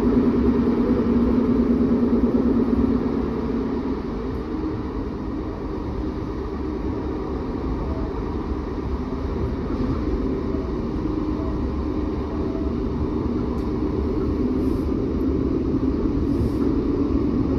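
Cabin noise inside a Class 156 Sprinter diesel multiple unit: the underfloor Cummins diesel engine drones with a low rumble. It is louder for the first few seconds, eases off, then slowly builds again.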